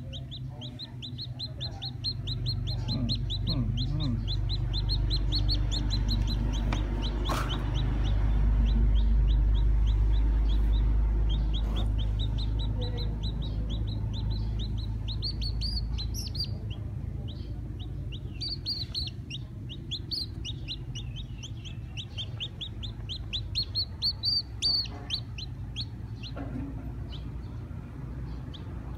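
Newly hatched black chick peeping in rapid runs of short, high, repeated peeps, several a second, stopping and starting again. A low rumble runs underneath, loudest for several seconds in the first half.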